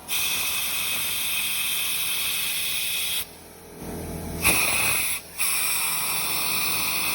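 A hissing jet of spray or compressed air in long bursts, stopping briefly at the start, dropping away for over a second about three seconds in, then going on again with one more short break.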